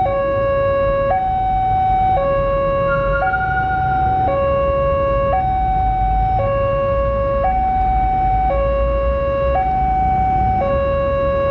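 Railway level-crossing warning alarm sounding its two-tone electronic chime, a lower and a higher note taking turns, each held about a second, over a steady low rumble.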